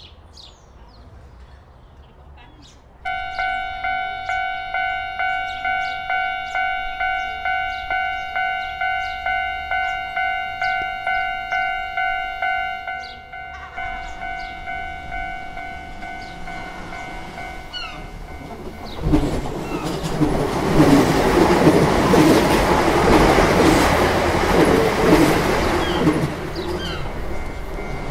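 Birds chirp, then about three seconds in a railway level crossing's warning bell starts ringing as a steady pulsing tone, about two strokes a second. From about nineteen seconds in a train passes for some seven seconds, the loudest part, and the bell keeps ringing under it and after it.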